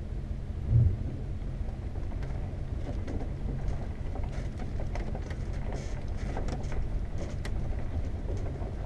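A 1991 Tioga Class C motorhome's engine running at low speed, heard from inside the cab as the rig creeps forward. There is a brief low thump about a second in, and light scattered clicks and crackles from about two seconds on.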